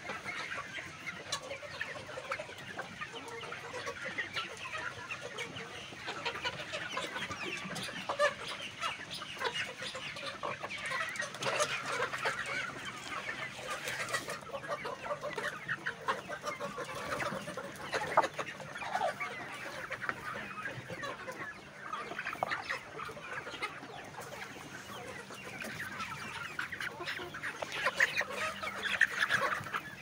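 A flock of Kadaknath chickens clucking continuously, many birds calling over one another at once.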